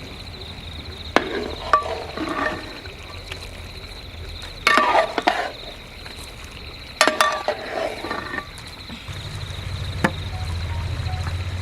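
Metal spoon clinking and scraping against a cooking pan in several short bursts of stirring, with a steady high chirring of insects behind it and a low hum rising near the end.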